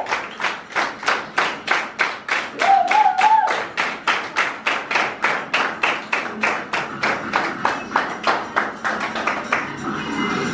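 Steady rhythmic hand-clapping, about three claps a second, keeping time with faint dance music. A short warbling tone sounds about three seconds in.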